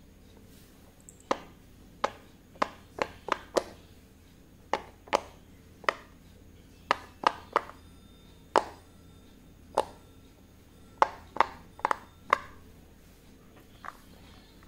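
Silicone Pop It fidget toy having its bubbles pressed in by finger: about twenty sharp pops, some in quick runs of three or four, with short pauses between.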